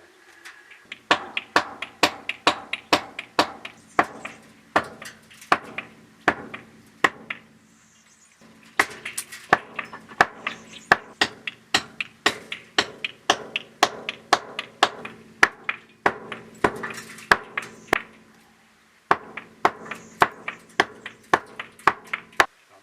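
Rhythmic sharp strikes, about two to three a second, each with a short metallic ring over a steady low hum, in three runs separated by brief pauses.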